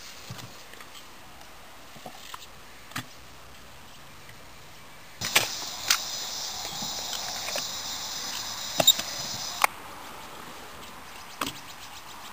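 Stunt scooter wheels and decks clacking on skatepark concrete in scattered sharp knocks. A steady high buzz starts about five seconds in and cuts off sharply about four seconds later.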